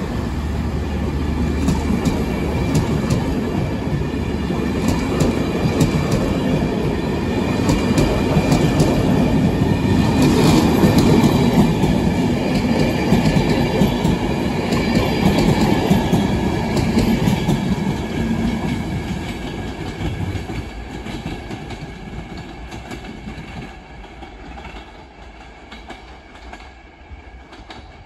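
Enterprise passenger train hauled by a Class 201 diesel locomotive pulling away, its coaches rolling past with a clickety-clack of wheels over the rail joints. A low hum stops about two seconds in; the train noise is loudest mid-way, then fades steadily as the train draws off into the distance.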